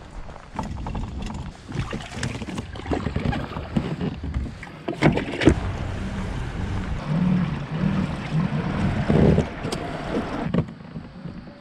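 Sounds of a plastic kayak on the water: wind on the microphone and water moving against the hull, with several sharp knocks of gear against the boat.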